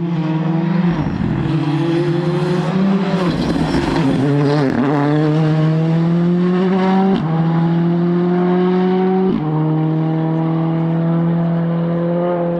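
Rally car engine running hard. Its revs dip and waver for a few seconds, then climb steadily, with two sudden drops for quick upshifts about seven and nine seconds in.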